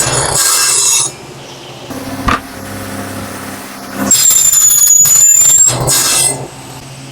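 Electric power saw running and cutting twice. A loud cut with a high whine ends about a second in, and a second cut runs from about four to six seconds. Between the cuts the motor runs on at a lower, steady hum, with a single click partway through.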